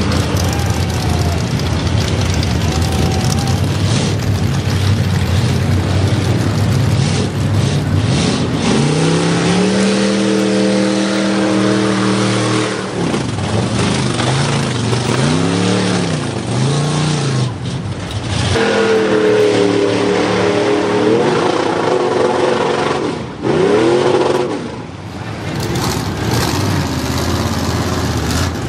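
Engines of lifted mega mud trucks running hard at high revs while driving through a mud bog, over a steady rush of tyres churning mud. Several times the revs climb, hold high for a few seconds and fall back.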